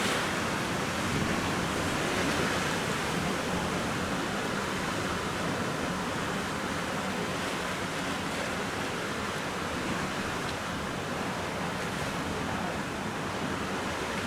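Ocean surf washing steadily on a sandy beach, an even rushing noise with slight swells and no distinct single waves.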